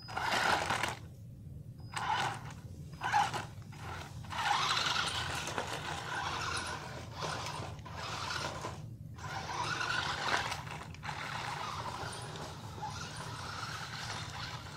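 Electric drive motors of a Revolt RC stunt car with large foam wheels, running in short stop-start surges as it is driven over stone paving. After about eleven seconds the surges give way to a steadier, quieter run.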